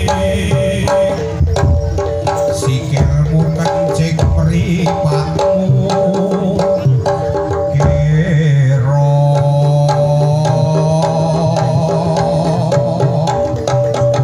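Live jaranan gamelan music accompanying a barongan dance: hand drums beat a fast, busy pattern over ringing gong and metallophone tones. From about halfway, a wavering, reedy melody comes in over a held low drone.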